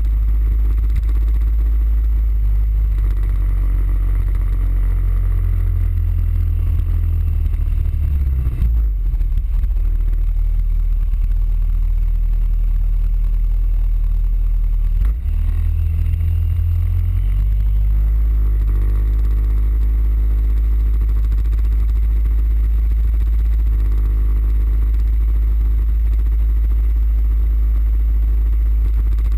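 Suzuki Burgman 650 maxi-scooter being ridden at road speed: a steady low rumble of wind and road noise on the scooter-mounted camera, with the parallel-twin engine's drone underneath. The rumble dips briefly about 9 and 15 seconds in.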